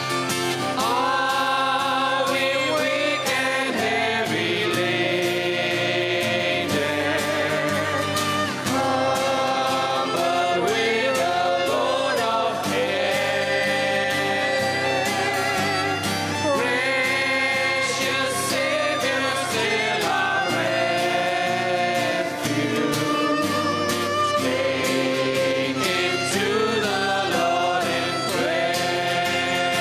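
Congregational worship song: several voices singing a gospel hymn with a live band of guitar and keyboard and a steady beat.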